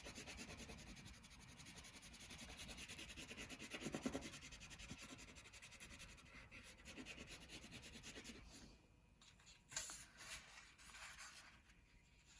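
Faint, rapid back-and-forth coloring strokes scratching on paper. The strokes stop about eight and a half seconds in, followed by a few light clicks.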